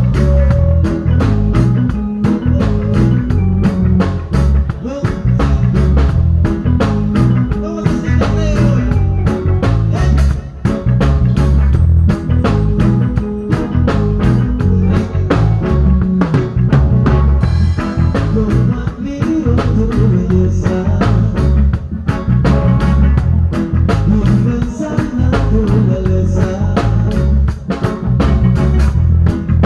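Loud, upbeat music with a fast, steady beat and heavy bass.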